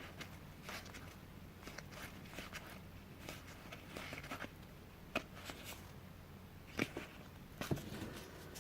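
Faint rustling of board-game cards being handled and laid out, with a few light taps, the clearest about five seconds in and twice more near the end.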